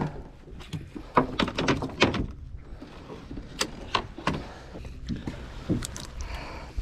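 Irregular knocks and clatter of a landing net and its pole being handled on a small boat's deck, over a steady low rumble.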